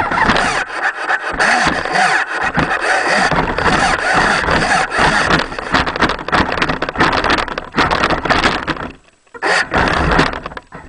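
Motor and drivetrain of a 4WD R/C truck, picked up by a camera in a waterproof housing mounted on the truck, running in varying bursts with many knocks and rattles as it drives through snow. It stops about nine seconds in, runs briefly again, then cuts off suddenly.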